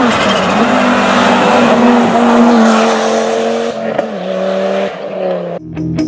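Audi quattro rally car's turbocharged five-cylinder engine running hard at high revs on a tarmac stage, its pitch dropping in steps at gear changes a few times as it comes on. It cuts off suddenly near the end into guitar music.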